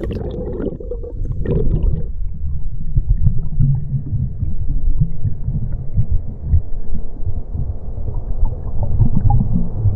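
A low, uneven rumbling that comes in about two seconds in and carries on, heavy in the bass, with nothing high in it. Before that, a brief higher sound fades away.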